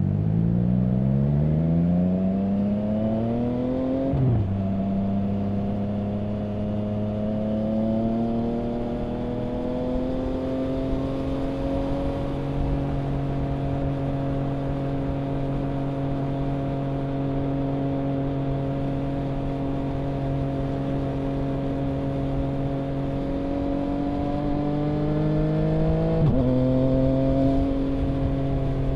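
2021 Triumph Trident 660's three-cylinder engine through a Mivv Delta Race exhaust, revving up for about four seconds and dropping in pitch at an upshift. It then holds a steady cruise, and near the end climbs again and shifts up once more.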